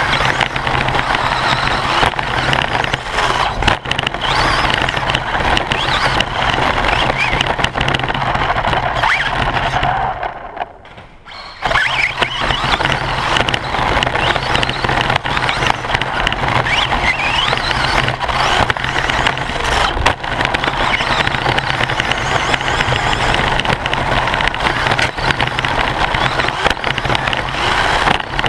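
Radio-controlled short course buggy driving hard on a dirt track, heard from a camera mounted inside its body: drivetrain whine, tyres and shell rattling over the dirt, with the pitch rising as it speeds up. About ten seconds in the sound drops away sharply for a second or so, then comes back.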